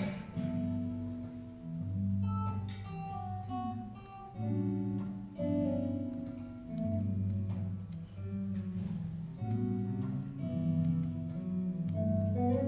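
Instrumental music, with a low bass line changing note every second or two under a higher melody.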